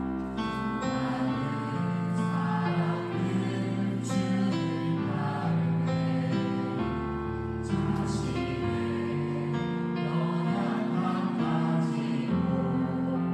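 Church worship band playing a praise song: voices singing over keyboard, bass and an electronic drum kit, with cymbal crashes about four and eight seconds in.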